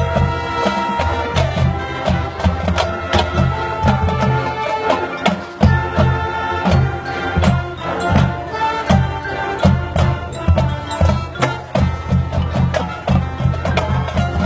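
Marching band playing: sustained ensemble notes over busy, steady percussion strokes.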